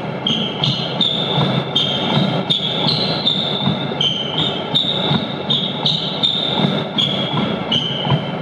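Treadmill running with a person's footfalls thudding on the moving belt in a steady stride, over the treadmill's running noise. A high tone sounds throughout, jumping in pitch every half second or so.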